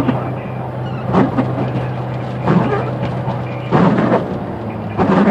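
Car driving through heavy rain, heard from the cabin: a steady engine and road drone, with a swish-and-thump repeating about every second and a quarter from the windshield wipers.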